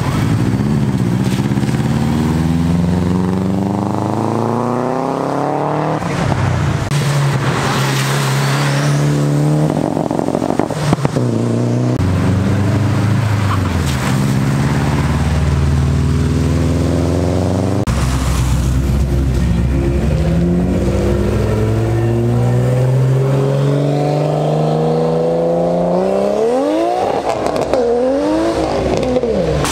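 Car engines accelerating away one after another, each one's pitch climbing as it revs up; near the end an engine revs up and down quickly several times.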